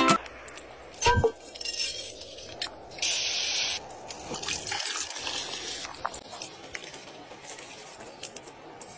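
Outdoor food-preparation sounds: soft squishing and scraping as a filling is pressed into a green pepper, a knock about a second in, and a short hiss about three seconds in, followed by faint handling clicks.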